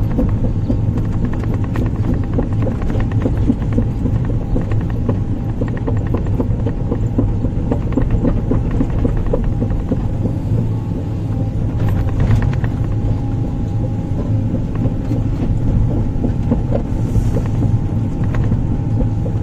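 Sumitomo 490 hydraulic excavator's diesel engine running steadily under work, heard close up, with a steady whine over the low rumble and occasional knocks.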